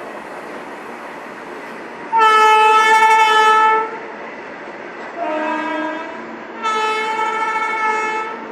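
WAG-9 electric locomotive's air horn sounding three times: a long high note, a short lower note, then the high note again, over the steady rumble of the freight train running past.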